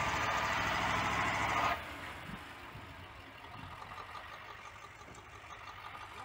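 Loud rushing noise from heavy trucks that cuts off abruptly about two seconds in, leaving a truck's diesel engine idling.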